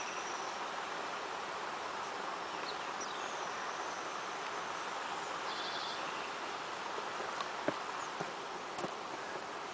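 Steady outdoor buzz of insects, with a couple of short high bird chirps and a few small clicks near the end.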